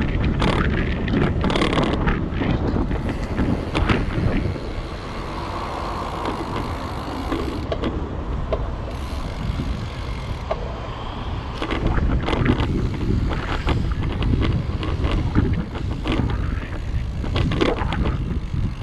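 Wind rumble on the microphone of a camera riding along on a bicycle, with street traffic and road noise. There are short clattering knocks near the start and again through the second half, with a calmer stretch in between.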